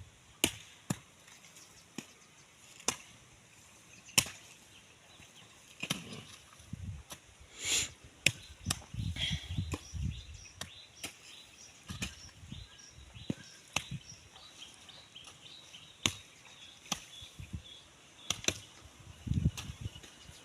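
Hand hoe chopping into garden soil, sharp strikes at irregular spacing, about one a second.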